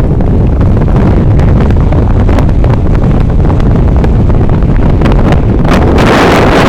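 Strong wind buffeting the microphone on a boat under way: a loud, rumbling rush with gusty flutter, growing stronger and hissier near the end.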